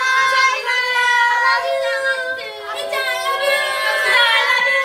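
A group of young women's voices calling out together, high-pitched and drawn out, several voices overlapping.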